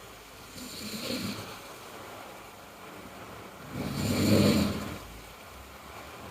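A sleeping person snoring: a soft snore about a second in, then a much louder snore about four seconds in.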